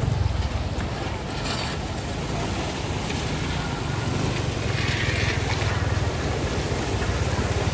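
An engine running steadily, a constant low rumble with a hiss over it.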